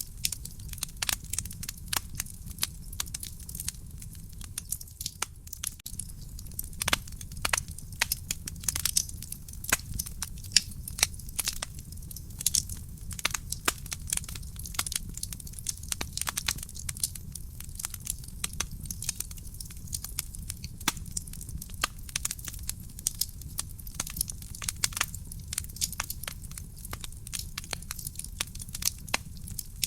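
Wood fire burning in a fireplace: dense, irregular crackling and popping of burning logs over a steady low rumble of the flames.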